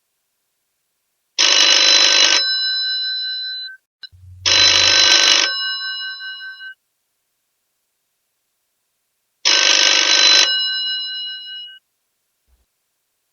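Old telephone's mechanical bell ringing in bursts of about a second, each leaving the bell tones to fade out briefly; three rings, the first two about three seconds apart, then a longer pause before the third.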